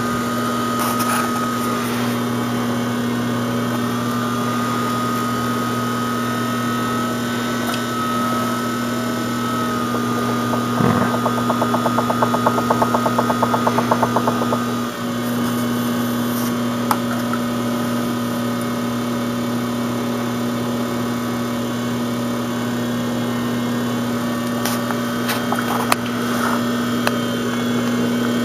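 Electric pottery wheel motor humming steadily with a thin whine above it, as very wet clay is centred by hand on the spinning wheel head. Around the middle, a rapid regular ticking lasts about three seconds.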